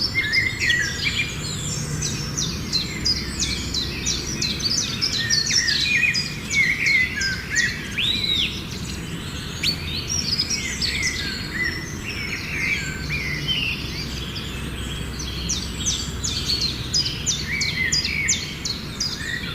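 Many birds chirping and calling at once in a dense, unbroken chorus of short overlapping chirps and whistles, typical of birds flocking back to roost, over a steady low rumble.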